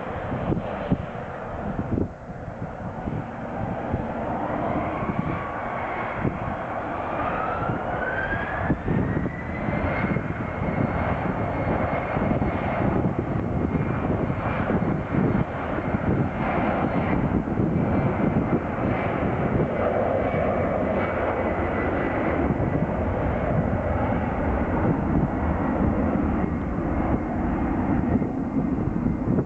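Airliner's engines spooling up with a whine that rises over about four seconds, then holds steady at high power over a broad rumble, as for a take-off run.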